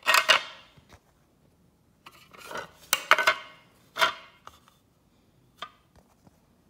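Hard plastic pieces of a broken taillight lens clacking and scraping as they are handled, knocked together and set down on concrete: a handful of separate clatters, loudest at the start.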